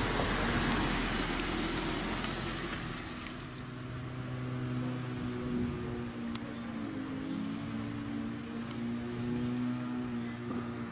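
A car going by on the road, its noise fading over the first few seconds, then soft music of sustained low held tones.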